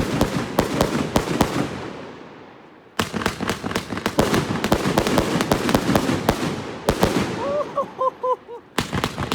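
A 112-shot mixed-caliber fireworks cake (30, 38 and 50 mm shells) firing: rapid, overlapping launch thumps and bursting shells, several a second. The shots die away about two seconds in, then start again sharply about a second later and keep going.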